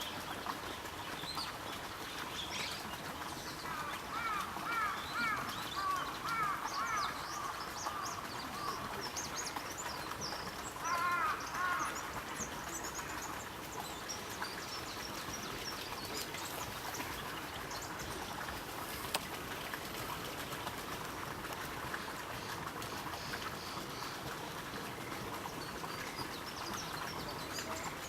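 Bull-headed shrike calling: a run of harsh, evenly repeated notes from about four to nine seconds in, and a brief louder burst of notes about eleven seconds in. Thin high chirps come and go through the first half.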